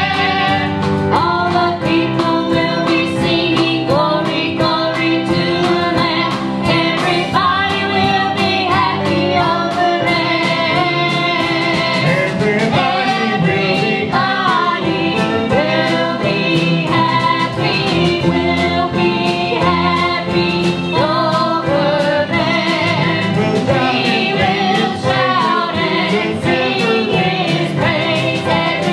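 A live church worship band plays a gospel song, with voices singing over acoustic and electric guitar, keyboard and a drum kit keeping a steady beat.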